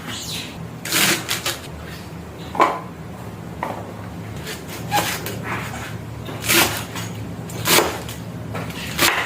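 Household items and containers being handled while stocking a fridge: a series of short knocks and clatters about once a second, over a steady low hum.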